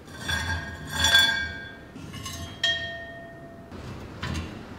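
Rusty metal parts of an old camping stove, its top plate and slotted burner grate, clinking and ringing as they are lifted off and knocked together: a few metallic clinks, the loudest about a second in, each leaving a ringing tone. A short scrape follows near the end.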